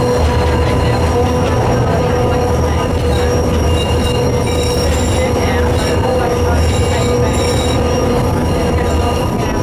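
Tram running along street track, heard from inside the cab: a steady rumble of wheels on rail with a steady whine and faint, intermittent high wheel squeal.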